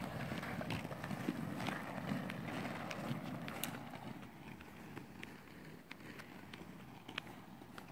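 Inline skate wheels rolling over rough asphalt, an uneven rumble with scattered clicks and scuffs, growing quieter about halfway through.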